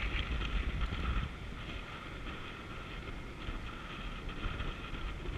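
Wind rumbling on the microphone, steady throughout, with a faint steady hum higher up behind it.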